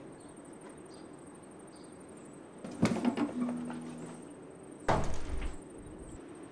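A door banged twice: a sharp knock with a short creaking tone about three seconds in, then a heavier thud of a door shutting about two seconds later.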